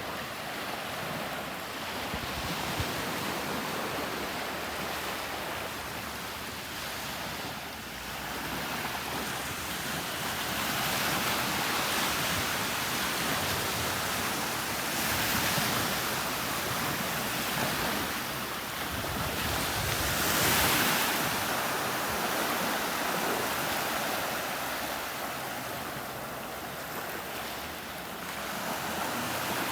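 Gulf of Mexico surf: small waves breaking and washing up the sand, the hiss swelling and fading every few seconds, with wind buffeting the microphone.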